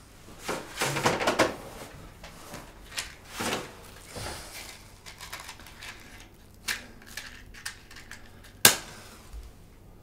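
Small handling clicks and scrapes from a matchbox, then a match struck sharply against the box near the end, the loudest sound.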